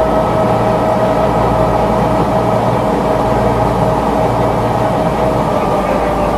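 Passenger boat's engines running steadily, heard from inside the cabin: a low drone with a steady humming tone above it.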